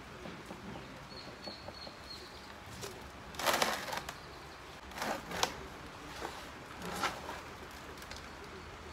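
Rustling and scraping of hands working a potted rubber tree and spider plant in a plastic pot: a few short bursts, the loudest about three and a half seconds in, then two about five seconds in and one near seven seconds.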